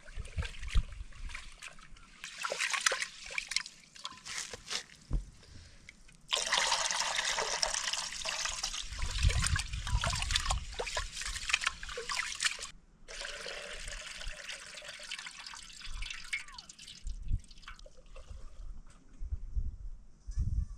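Water pouring and splashing. A few seconds of small splashes are followed by a steady pour that starts and stops abruptly, then a second, shorter pour.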